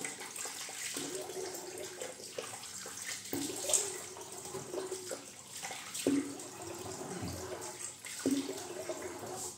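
Water running from a bathroom sink tap, with irregular splashes as the face is rinsed after a shave.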